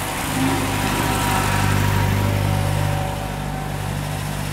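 MG MGA roadster's four-cylinder engine running at low revs as the car drives slowly past, a steady low hum that swells about a second in and eases off after about three seconds.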